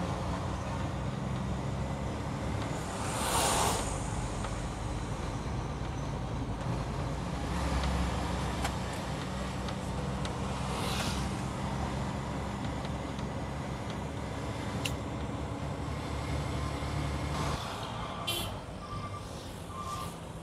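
Tractor-trailer truck on the move: a steady engine note under road noise, with three short rushes of noise over it, the loudest about three seconds in. The low engine note drops away near the end.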